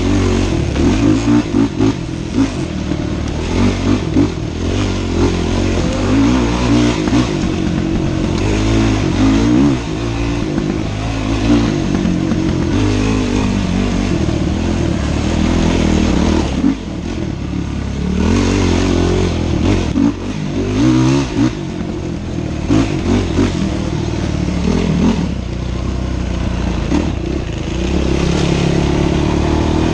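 Dirt bike engine being ridden hard on a rough trail, revving up and dropping off again every second or two as the throttle is worked. Near the end it settles into a steadier, rising rev.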